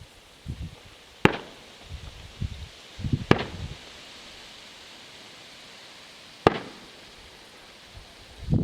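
Fireworks going off: three sharp bangs, about two, then three seconds apart, with low rumbling thuds between the first two and again near the end.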